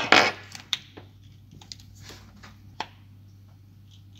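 Hands handling a plastic RC crawler axle and its metal axle shaft on a wooden table, working it with pliers: a few loud knocks at the start, then scattered light clicks.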